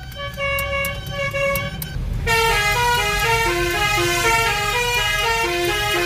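A Basuri twelve-trumpet telolet horn playing a tune in held, stepped notes, becoming louder and fuller about two seconds in.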